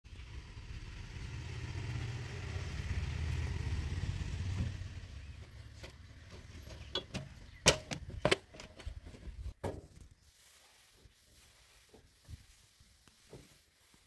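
A vehicle engine rumbles, swelling and then fading away over the first five seconds or so. From about seven seconds in come several sharp knocks and clanks on the metal of a JCB 3DX backhoe loader as someone climbs up onto its loader arm, then only a few light taps.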